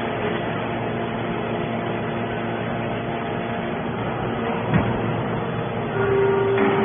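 Horizontal hydraulic scrap-metal baler running, its hydraulic power unit giving a steady hum with several held tones. A single sharp knock comes a little before five seconds in, and about a second later a louder steady whine sets in.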